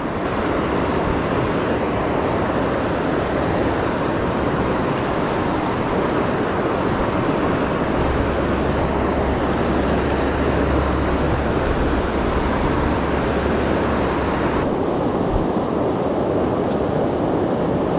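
Fast mountain river rushing over rocks, a steady loud whitewater rush. About three-quarters of the way through, the sound abruptly turns duller as its high hiss drops away.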